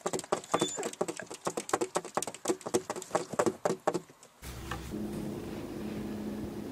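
A cat's paws patting rapidly against a car's side window glass, a fast run of sharp taps that stops suddenly about four seconds in. After that, a faint steady hum.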